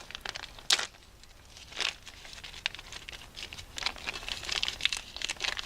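Hand-handling noise while working on small engine parts: rustling and crinkling, with a sharp click about three-quarters of a second in and another near two seconds, then a growing run of small clicks and rustles near the end.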